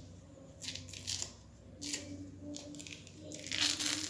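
Orange peel being torn off the fruit by hand in a series of short rips, the loudest near the end.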